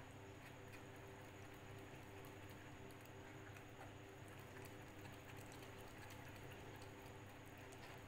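Near silence: a faint steady hum, with sparse faint ticks from a silicone spatula pressing cooked mango pulp through a fine wire-mesh strainer.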